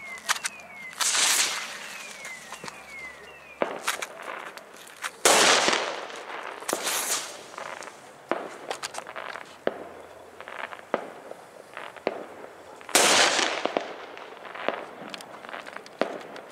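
Firecrackers and fireworks going off: many sharp cracks and pops, with loud blasts about 1, 5, 7 and 13 seconds in, the ones at 5 and 13 seconds the loudest, each trailing off in a rumble.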